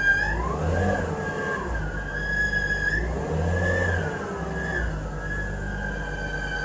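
BMW E46 320i engine blipped three times while a steady high-pitched squeal runs underneath, dipping in pitch with each rev; the owner puts the squeal down to the alternator.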